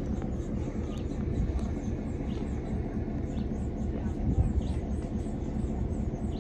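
A steady low rumble, with small birds chirping briefly every second or so over it.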